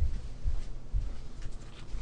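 Footsteps: soft low thuds about twice a second.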